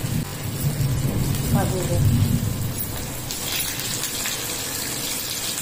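Pieces of steamed colocasia-leaf roll deep-frying in hot oil in a kadai, the oil sizzling and crackling steadily. The sizzle grows brighter about halfway through.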